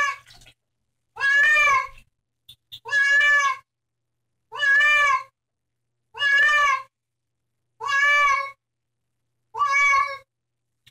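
Domestic cat meowing over and over, about seven long drawn-out meows evenly spaced about a second and a half apart, each rising and then falling a little in pitch: the complaint of a cat being bathed.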